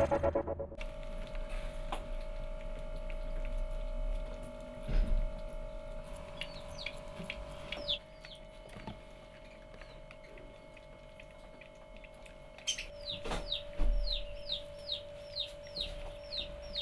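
Baby hedgehogs peeping while nursing: short, high squeaks that fall in pitch, sparse at first, then about one and a half a second near the end. A couple of soft knocks and a steady faint hum sit underneath.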